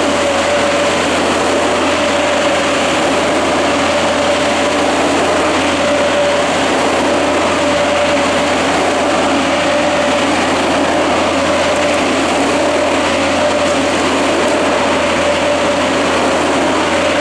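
Oscillating-fan tree sprayer rig running while spraying: a loud, steady mix of engine and fan noise with the hiss of air-blown spray. A steady hum wavers slightly in pitch throughout.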